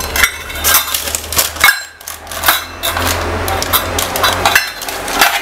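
A steel cup pressing and tapping down a sticky nut-and-seed bar mixture in a parchment-lined metal baking tray: a run of irregular clinks and knocks of metal on metal, with the butter paper rustling between them.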